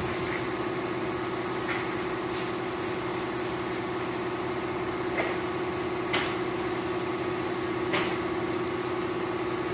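A machine running with a steady, even hum, with a few short sharp clicks or taps about a second or more apart.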